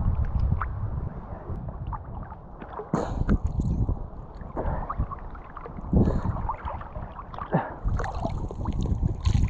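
Water sloshing and splashing in irregular strokes in shallow sea water, with low wind rumble on the microphone.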